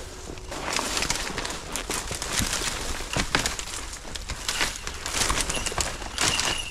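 Irregular crunching and rustling through dry brush and grass, with a faint steady high tone near the end.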